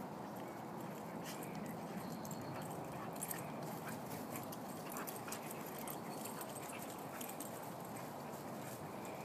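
Two coonhounds play-fighting on grass: a few brief faint whines and yips over a steady outdoor hiss.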